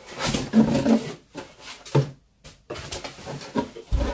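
Cardboard packaging being handled: the card and paper inserts of a speaker box rustle and scrape as they are pulled out, with a low thump near the end. The sound drops out to silence for about half a second a little after two seconds in.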